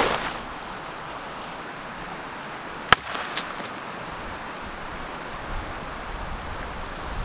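Steady insect hum over a light outdoor hiss, opening with a brief rustle of a tarp being dropped. About three seconds in comes a single sharp crack, the loudest sound, of a dry stick snapping, with a smaller crack half a second later.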